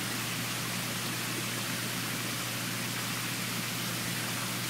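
Steady rushing hiss with a constant low hum underneath, the background noise of water flowing through the crayfish culture tanks; no distinct splashes stand out.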